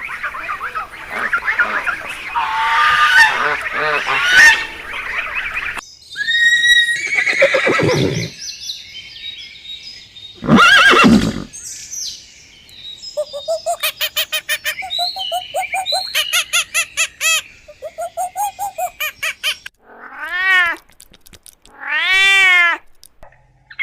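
A run of different animal calls, one after another: a noisy stretch, a falling call, a short loud call, a rapid pulsed call, then two rising-and-falling calls near the end.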